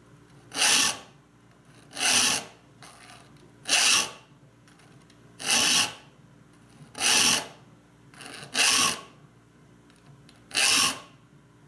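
Extra-slim triangular file sharpening the teeth of a Spear and Jackson dovetail saw. There are seven short, even file strokes across the saw plate, about one every second and a half.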